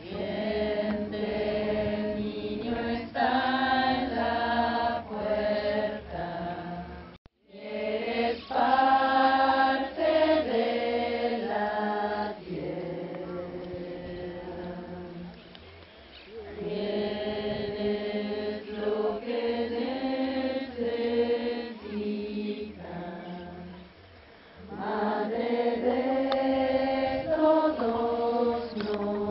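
A group of voices chanting a song together in long held phrases, with a short silent break about seven seconds in.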